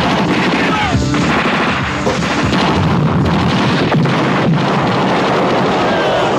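Action-film soundtrack: gunfire and an explosion over background music.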